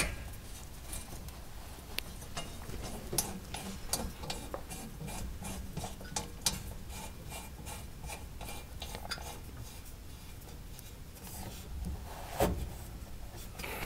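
Faint scattered clicks and rubbing as a protective sleeve is worked down over a stainless steel braided turbo oil hose by hand, with one sharper knock near the end.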